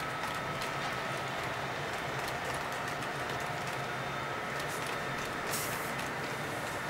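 Model freight train of double-stack container well cars rolling steadily past on the layout track: an even running noise with a low hum and many faint clicks from the wheels, and a short hiss about five and a half seconds in.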